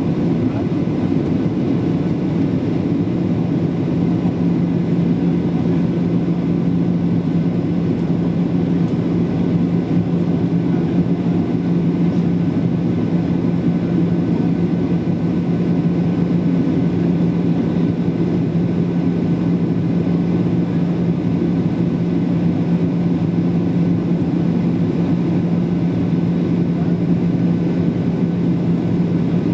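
Boeing 737-800 cabin noise at a window seat over the wing on approach: the steady roar of airflow and the CFM56 turbofan engines. A steady low hum under it grows stronger about three seconds in.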